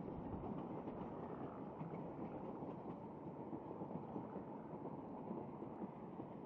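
Distant narrow-gauge steam train, the George England 0-4-0 saddle tank Welsh Pony hauling its carriages, running along as a faint, steady rumble that fades slightly as it draws away.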